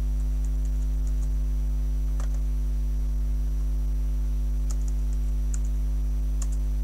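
Computer keyboard keys clicking in a few short scattered runs as a command is typed, over a steady electrical hum.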